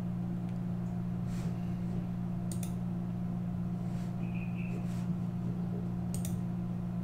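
Steady low electrical hum with a few faint computer mouse clicks.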